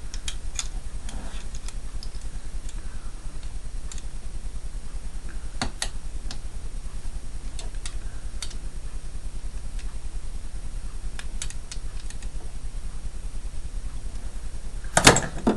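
Small plastic parts clicking and tapping as a cover held on by little plastic ears is worked loose by hand, then a louder clatter about a second before the end, over a steady low hum.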